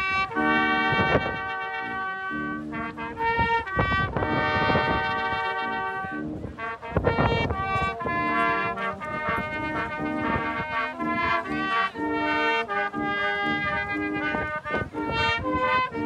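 Small brass band, tuba among the horns, playing a tune in sustained chords. Gusts of strong wind buffet the microphone now and then.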